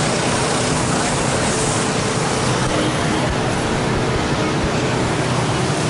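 Steady, loud city-street din of traffic and a crowd's background chatter, with no single sound standing out.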